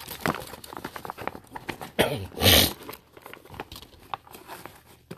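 Fabric tackle hip pack being handled and rummaged through: irregular rustling, rubbing and small clicks of the cloth and its fittings, with two louder scrapes about two seconds in.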